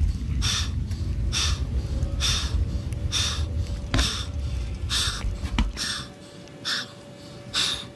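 A cyclist breathing hard from the effort of a steep hill climb: loud, sharp rushes of breath about once a second. A low rumble under the breathing stops a little under six seconds in.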